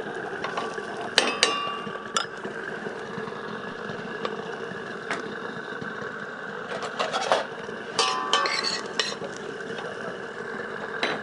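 Metal spoon clinking and scraping against a stainless steel saucepan as chopped celery, leek and garlic are added to hot olive oil, over a steady hiss. The clinks come singly through the first half and bunch together with a brief metallic ring about eight to nine seconds in.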